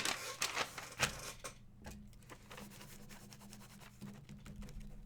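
Light clicks and scrapes of trading cards and packaging being handled and set into a box, busiest in the first two seconds and sparser after, over a faint steady hum.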